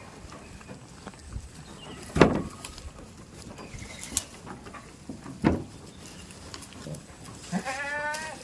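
A goat bleats once near the end, a wavering call lasting under a second. Before it come two sharp knocks about three seconds apart, the first the loudest sound here.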